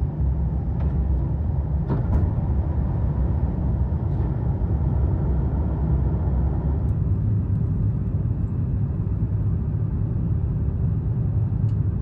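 Jet airliner cabin noise just after lift-off: a steady low rumble of the engines and rushing air heard inside the cabin, with a few faint clicks about two seconds in.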